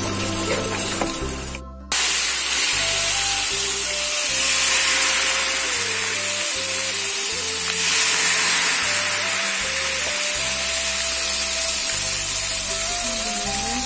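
Kremes batter frying in hot oil in a frying pan: a steady sizzle, with background music playing over it. The sound drops away briefly just under two seconds in, then the sizzle comes back.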